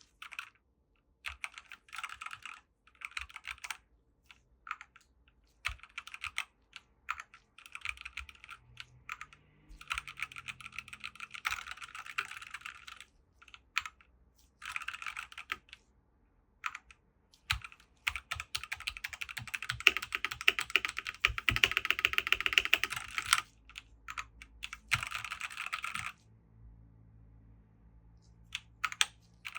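Typing on a Dierya DK98SE mechanical keyboard with linear red switches: short runs of keystrokes separated by pauses, building to a long, fast, dense flurry of typing about two-thirds of the way through that stops abruptly, then a few scattered keystrokes near the end.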